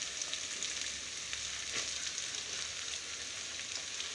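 Sliced onions frying in oil in a kadai, giving a steady sizzle with small scattered crackles.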